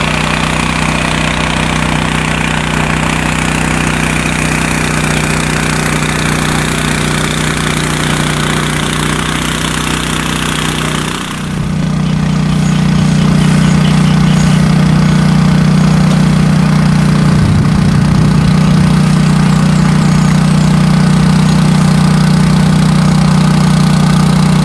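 Six-rotor agricultural spraying drone flying over a rice paddy, its propellers giving a steady, loud multi-tone hum. About halfway through the sound dips briefly and returns louder, with a deeper steady drone.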